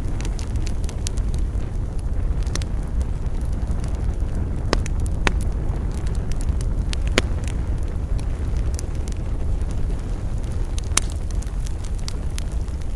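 Wood fire burning: scattered sharp crackles and pops over a steady low rumble, the loudest pop about seven seconds in.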